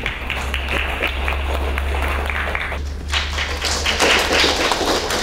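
Audience applauding: many hands clapping in a dense, irregular patter that grows brighter about three seconds in, over a low steady hum.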